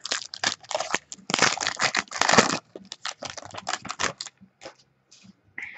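A trading card pack wrapper being torn open and crinkled by hand as the cards are pulled out: a quick run of crackles and rustles, densest a second or two in, thinning out after about four seconds.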